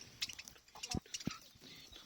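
Small cage birds, budgerigars and lovebirds, chirping in short, scattered high calls, with a few soft knocks about halfway through.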